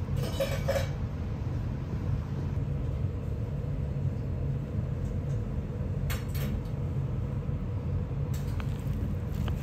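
Steady low room rumble with a few light clinks of tableware: one cluster near the start, another about six seconds in, and a single faint tick near the end.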